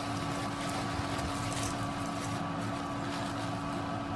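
A steady mechanical hum holding a few constant tones, with faint rustling and clinking of tangled bead and chain jewellery being pulled apart by hand.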